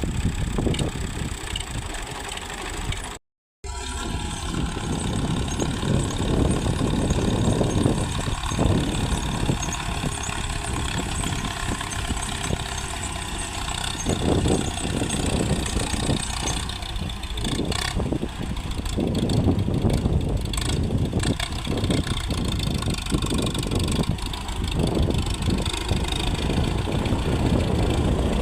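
Tractor engine running steadily, with the sound cutting out completely for a moment about three seconds in.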